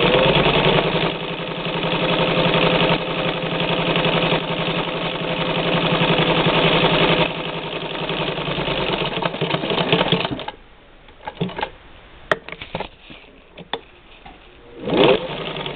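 A 1952 Singer 15-91 sewing machine, with its direct-drive motor, stitching through heavy-duty Velcro: it runs steadily at speed for about ten seconds, then stops. A few clicks follow, and the machine runs again briefly near the end.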